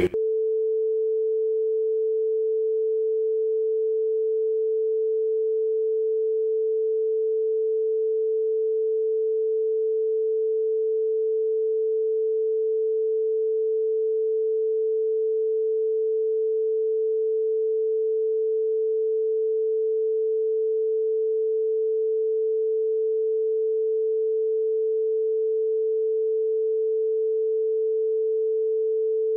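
A steady, unbroken electronic sine tone, a censorship bleep laid over a redacted stretch of the recorded interview. It cuts in abruptly in place of the speech and holds one pitch at an even level.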